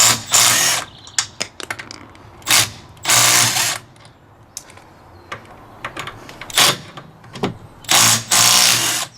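Milwaukee M12 12V right-angle (90-degree) impact wrench on setting 3, hammering in about five bursts, three of them long and two short, working on nuts. Small clicks come between the bursts.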